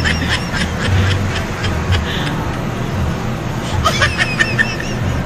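A person laughing briefly, once near the start and again about four seconds in, over a steady low rumble.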